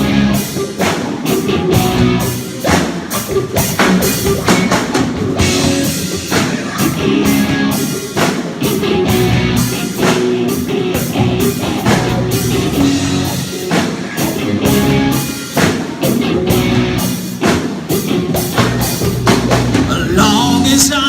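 Live rock band playing an instrumental passage: drum kit keeping a steady beat under guitar.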